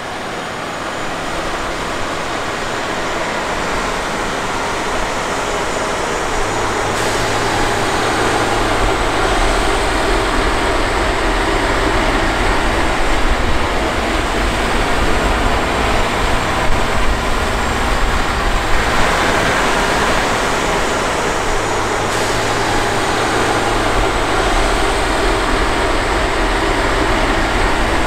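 Diesel engine of a John Deere 9510R articulated four-wheel-drive tractor running under load as it pushes and packs corn silage with a dozer blade. The engine drone grows louder over the first few seconds, and a deep low hum comes in from about seven seconds on.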